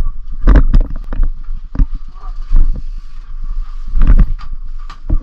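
Mountain bike rolling over a wooden start-house deck, heard from a helmet camera: heavy thumps and knocks on the microphone over a low rumble, with faint voices and a faint steady high tone behind.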